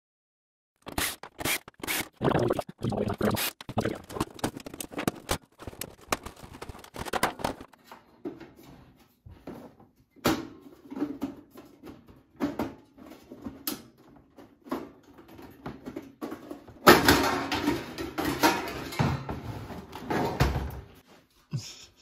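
Thin sheet-metal side panel of a toaster oven being pried and worked loose by hand: a run of separate clanks, knocks and taps. Near the end comes a louder few seconds of scraping and rattling.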